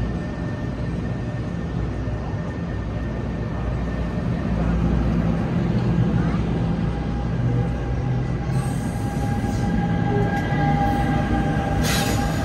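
New Jersey Transit MultiLevel double-deck coaches rolling past at close range, a steady rumble of wheels on the rails with a faint steady whine growing in the second half. About half a second before the end a short burst of hiss comes as the electric locomotive at the rear comes alongside.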